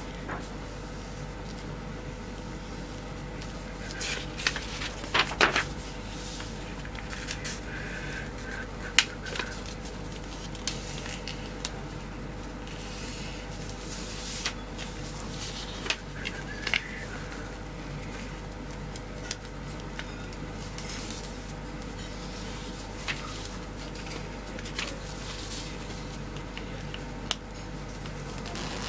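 A sheet of paper being folded and creased by hand on a tabletop: intermittent rustles, crinkles and taps, the loudest about five and nine seconds in, over a steady background hum.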